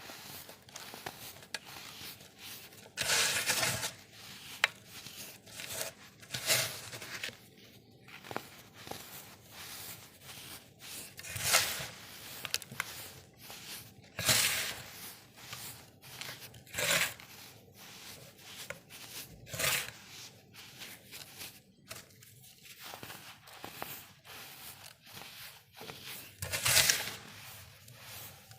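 Dried, hardened baking soda chunks being crushed: a run of crumbly crunches and crackles, with about seven louder crunches among many softer ones.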